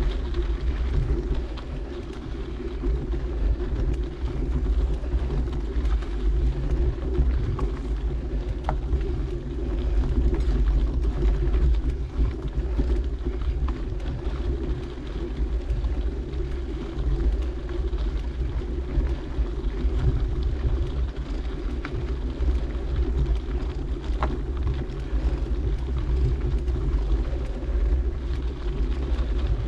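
Steady low noise of wind on the microphone and mountain bike tyres rolling over a dirt trail during a ride, with a couple of faint ticks.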